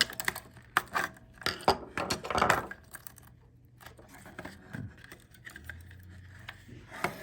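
Flat-head screwdriver clicking and scraping against a corrosion-stuck AA battery and its metal spring in a plastic toy lightsaber's battery compartment, prying the battery loose. Sharp clicks and scrapes come thick in the first three seconds, then the handling goes quieter.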